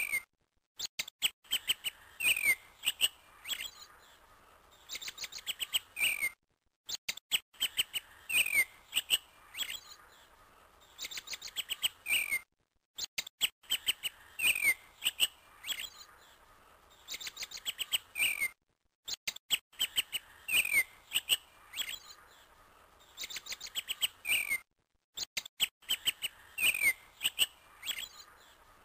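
Birds chirping: a short recording of bird calls, with quick chirps and falling whistled notes, looped so that it repeats about every six seconds with a brief cut to silence between repeats.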